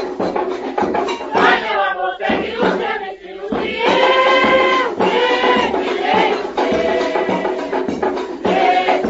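Samba de terreiro played by a samba school ensemble, from an old recording: percussion keeps a steady beat under long held melody notes.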